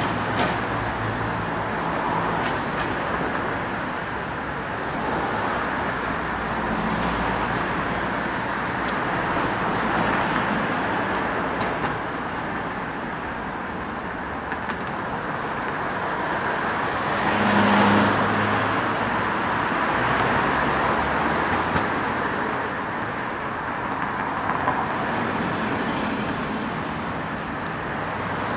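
Steady road traffic going by, with one vehicle passing close a little over halfway through, its noise swelling and fading.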